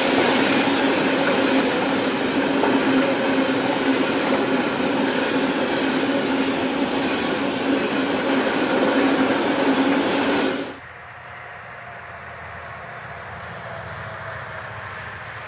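Freight train of covered hopper wagons passing close at speed: loud, dense rail and wheel noise with a steady hum running through it. About ten and a half seconds in it cuts off abruptly to the much fainter, steady sound of a distant electric regional train passing.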